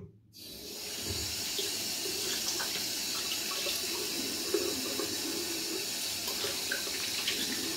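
Tap water running steadily into a sink. It starts a moment in and holds an even hiss.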